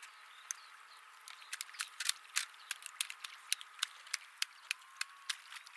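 Sea otter pounding a mussel shell against a stone: a quick, irregular series of sharp knocks, about two or three a second.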